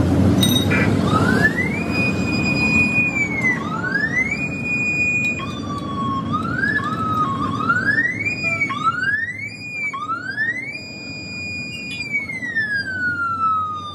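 Electronic siren sweeping up to a high held note and falling back, repeated several times with shorter quick whoops in the middle and a long slow fall near the end, over steady traffic and street noise.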